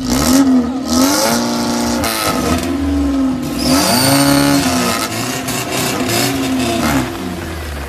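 BMW E36's four-cylinder M43B16 engine revving hard, its pitch swinging up and down several times, then easing off near the end.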